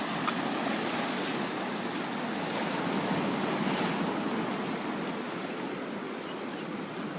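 Ocean surf washing against the shore, a wave swelling about three to four seconds in and then easing off.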